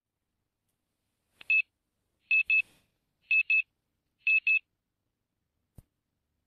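Electronic alarm beeping in a dark bedroom: one short beep, then three quick double beeps about a second apart, all at the same high pitch. A single click follows near the end.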